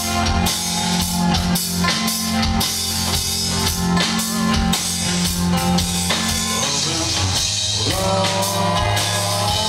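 Live rock band playing an instrumental break between verses: a drum kit keeps a steady beat under electric bass, strummed acoustic guitar and bowed cello.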